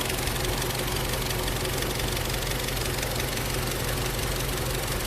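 Volkswagen Golf GTI Mk7's turbocharged 2.0-litre four-cylinder idling steadily.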